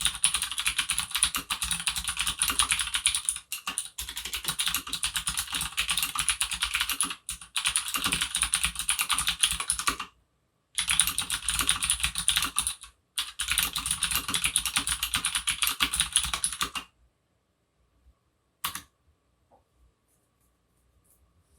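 Fast typing on a tenkeyless mechanical keyboard with Cherry MX Blue switches on a steel plate: a dense stream of sharp clicky keystrokes in several runs broken by short pauses. The typing stops about three-quarters of the way through, leaving one lone keystroke and then near silence.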